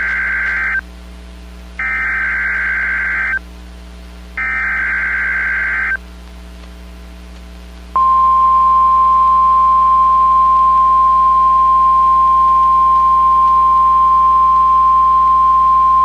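NOAA Weather Radio Emergency Alert System alert. First come the end of one burst and then two more short, equal bursts of SAME digital header data, about a second apart. After a pause of about two seconds, the single long, steady warning alarm tone starts about eight seconds in; it signals a Tornado Watch.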